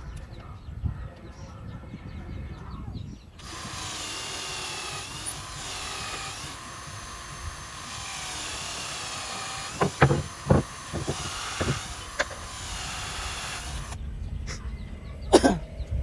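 Cordless drill driving a screw into a wooden post, its motor running for about ten seconds with the pitch wavering under load, then stopping. A few sharp knocks come in the second half, the loudest near the end.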